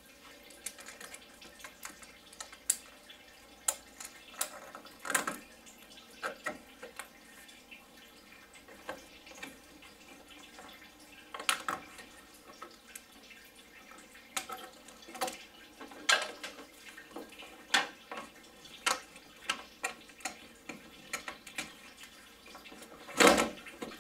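Irregular clicks, taps and clanks of hand tools and hose clamps as coolant hoses are worked off a VR6 engine, with the loudest clank near the end.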